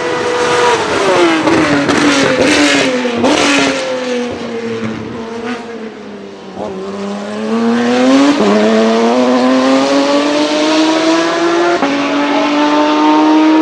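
Dallara GP3 race car's V6 engine slowing for a corner, its pitch falling over about five seconds with a few sharp cracks, then accelerating away with the pitch climbing again.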